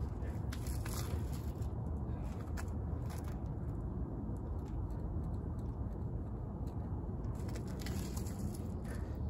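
Steady low rumbling background noise, with a few faint clicks scattered through it.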